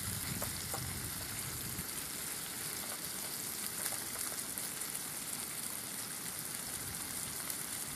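Chicken tenderloins sizzling in sesame oil in a frying pan: a steady hiss with faint crackles.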